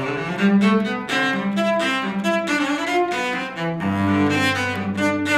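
Cello bowed in a slow melodic line, one sustained note after another, with a deep low note held through the last second or so.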